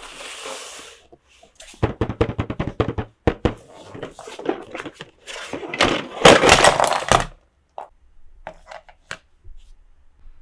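Plastic toy pieces and packaging being handled close to the microphone. There is a run of rapid sharp clicks and taps, then a loud crinkling rustle a little past halfway, and a few single clicks near the end.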